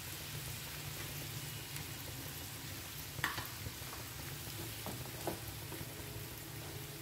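Chopped onions, tomatoes and green chillies sizzling steadily in mustard oil in a nonstick pan, with a few brief knocks of a wooden spatula against the pan, about three and five seconds in.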